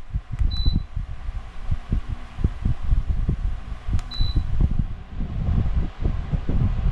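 Pelonis 16-inch pedestal fan blowing air onto the microphone, heard as an uneven, gusty low buffeting. Two short high electronic beeps, each just after a click, come about half a second in and about four seconds in.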